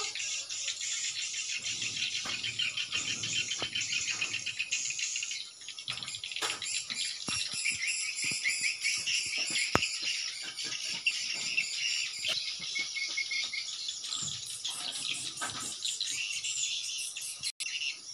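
Swiftlet calls: a fast, dense chittering trill, repeated without pause, of the kind sounded from a swiftlet house's speakers to lure the birds in.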